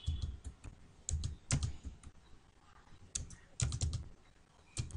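Keystrokes on a computer keyboard as numbers are typed in: irregular sharp taps in small clusters with short pauses between.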